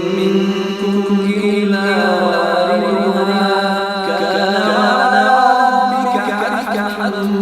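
A male reciter chanting the Quran in melodic tajweed style, drawing out long held vowels with wavering ornaments.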